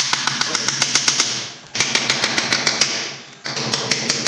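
Hammer driving small nails into an MDF door panel: quick light taps, about seven a second, in three runs with short pauses between them.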